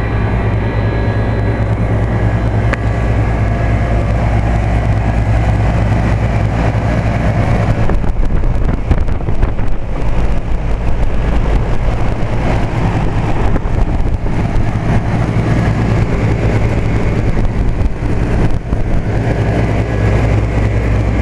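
1998 Trane Odyssey commercial split-system condensing unit running steadily, the compressor's low hum under the condenser fan's rush. It is running continuously without cycling off in 90°F heat. The noise becomes more uneven about eight seconds in.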